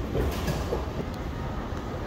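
Dubai Metro train running: a steady low rumble with a brief hiss about a third of a second in and a single click just past a second.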